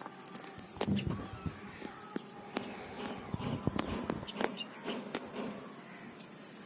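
Insects trilling steadily at a high pitch, with scattered sharp clicks and a few soft thumps.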